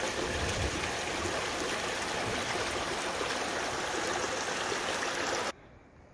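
Small creek running over rocks, a steady rushing splash of water that stops suddenly near the end.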